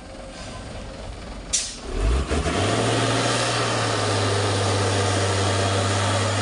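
Mitsubishi Fuso 6x4 truck's diesel engine working under a heavy load. It runs low at first; after a sharp click about a second and a half in, it revs up and holds a loud, steady drone, pulling hard on the laden truck with black smoke pouring from the exhaust.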